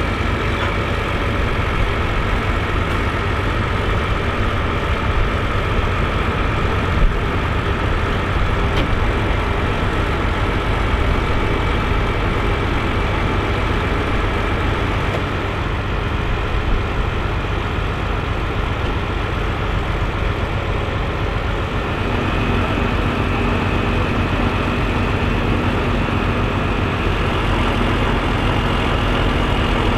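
Fendt 824 Favorit tractor's diesel engine running steadily at low revs, a deep rumble with a thin high whistle over it. About two-thirds of the way through, a lower steady hum joins and the whistle rises a little.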